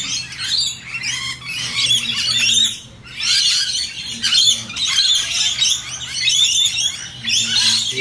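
A flock of rainbow lorikeets chattering and screeching without a break, with a brief lull about three seconds in.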